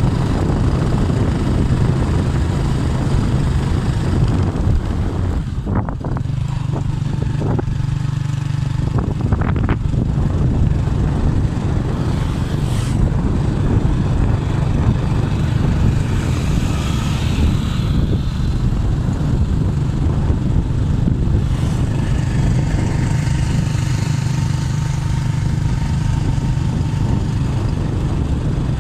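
Motorcycle engine running at a steady cruise, with wind and road noise from riding, and a few brief knocks about six to ten seconds in.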